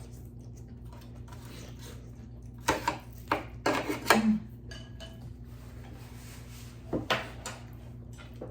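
Eating utensils clinking and knocking against a bowl: a cluster of short clicks about three to four seconds in and two more near seven seconds, over a steady low hum.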